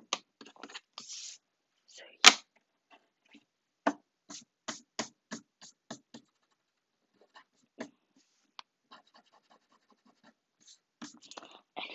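Scattered small clicks and taps from things being handled on a desk, with one sharp knock about two seconds in and a run of faint quick ticks later on.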